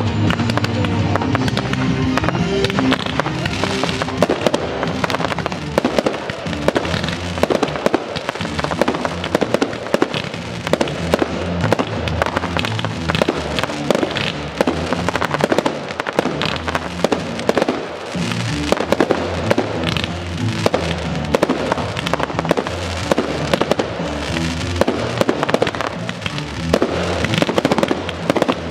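Fireworks display going off continuously, aerial shells and comets bursting in many bangs and pops close together, over a music soundtrack.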